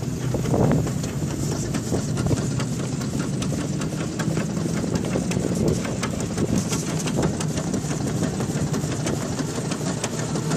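A 1910 Stanley Steamer steam car under way: a steady mechanical running sound with a fast, even ticking from its engine and running gear.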